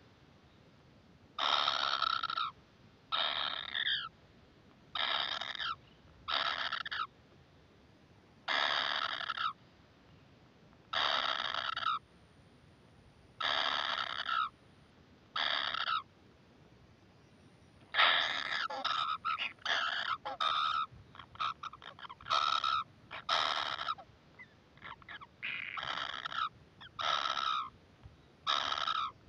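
Oriental dwarf kingfisher nestlings giving harsh begging calls, each under a second long and repeated every second or two. About two-thirds through, the calls come faster and overlap in a busy run of short calls, then return to single calls.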